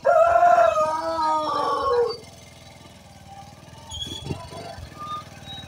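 Several drawn-out animal calls overlapping for about two seconds, then a motorcycle engine running quietly.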